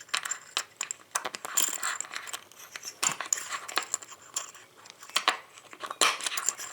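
A small metal padlock and its key being worked: a string of sharp metallic clicks and rattles as the key goes in and turns to open the lock.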